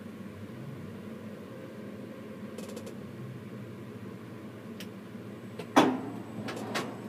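Steady low mechanical hum inside a tower crane's cab. A sharp knock comes about six seconds in, followed by a couple of lighter clicks.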